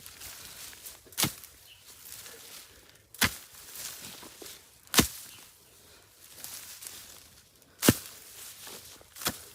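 Steel hoe chopping into soil with five separate strikes, about two seconds apart, with faint scraping of earth between them.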